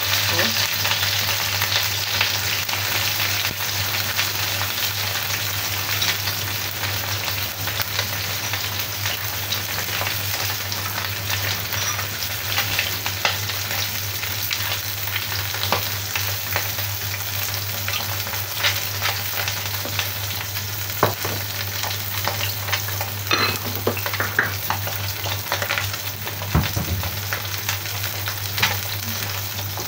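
A whole fish frying in hot oil in a wok: a steady sizzle with scattered small pops and crackles of spitting oil.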